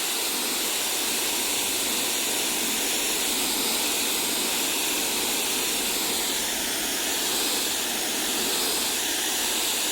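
Coyardor CP2500 electric pressure washer spraying concrete through its wide 25-degree nozzle: a steady, even hiss of the water jet striking the pavement, held without a break.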